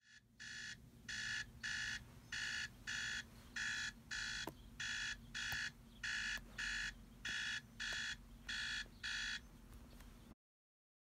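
Tablet alarm clock going off: short electronic beeps in quick pairs, about one pair a second, stopping about nine seconds in as the alarm is dismissed.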